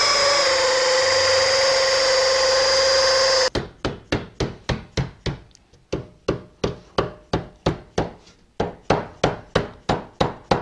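A loud, steady machine whine cuts off suddenly about three and a half seconds in. Then come sharp, even hammer blows, about three a second, as a sheet-aluminium rib flange is worked over a form block.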